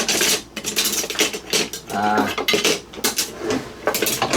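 Kitchen utensils and dishes clinking and clattering in a run of short knocks, with a brief squeak about two seconds in.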